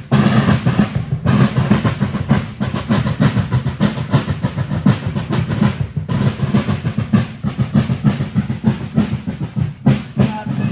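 Marching snare and bass drums of a fife-and-drum corps playing a fast, steady drum beat with rolls; the fifes are not heard.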